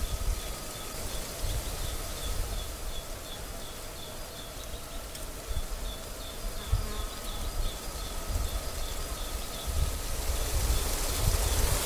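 Wind gusting on the microphone, with low rumbling buffets that swell near the end. A high-pitched chirp repeats about four times a second over it.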